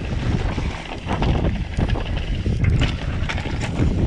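Mountain bike rattling and knocking over a rough dirt trail, with wind buffeting the microphone in a steady low rumble.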